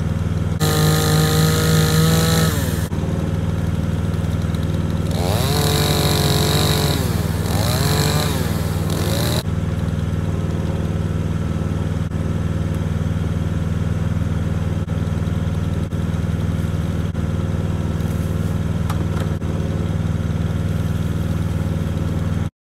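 Gas chainsaw engine running, revved up twice while cutting brush, about a second in and again from about five to nine seconds in, and running steadily at a lower pitch in between and afterwards.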